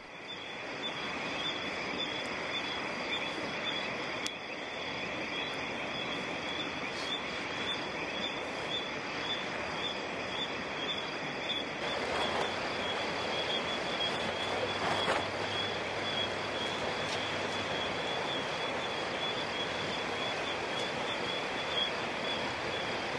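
Steady night-time chorus of insects with one continuous, high, regularly pulsing trill, over a faint crackle of a wood campfire.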